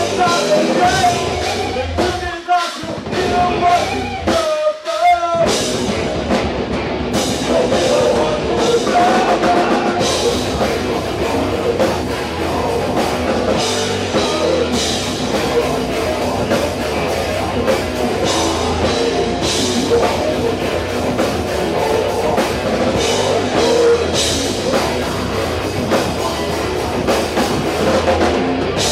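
Live rock band playing loud, heavy rock with a pounding drum kit, with two brief breaks in the music a few seconds in.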